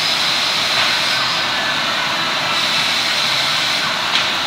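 Morbidelli Author 744S CNC machining center running: a loud, steady machine noise with a high whine and a rush of air. There is a brief tick near the end.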